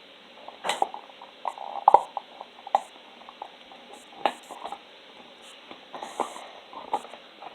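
Slime being handled and pressed into a plastic container: irregular soft squishes, sticky pops and small clicks and taps, the sharpest about two seconds in.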